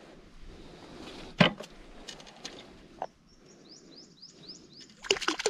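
A sharp knock about a second and a half in and a smaller one a couple of seconds later, then a bird calling with a quick string of short rising chirps, about six a second. Near the end a fast run of clattering and splashing starts.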